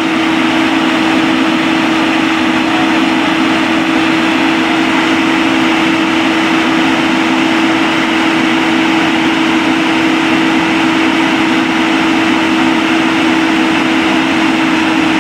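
A heavy engine running steadily at a constant speed, with a strong, unchanging hum.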